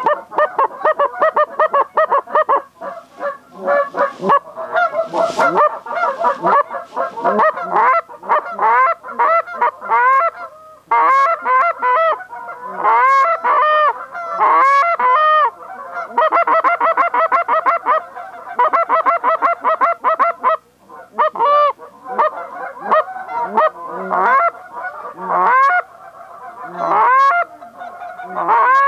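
A flock of Canada geese honking: many short, overlapping calls with a sharp upward break, kept up almost without pause, with brief lulls twice.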